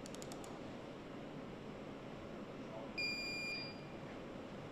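A single electronic beep, about half a second long and steady in pitch, about three seconds in, over the steady noise of an engine assembly hall. A few quick faint clicks come right at the start.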